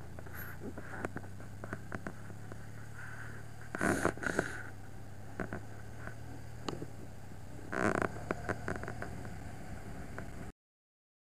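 An engine idling steadily, with scattered light clicks and two brief rustling bursts about four and eight seconds in; the sound stops abruptly near the end.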